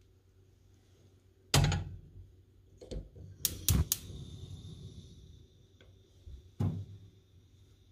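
Bialetti Brikka moka pot set down on a gas stove's cast-iron grate with a loud metallic clunk, then a quick run of sharp igniter clicks as the burner lights, followed by the faint steady hiss of the gas flame. Another knock comes about two-thirds of the way through as the burner knob is turned down.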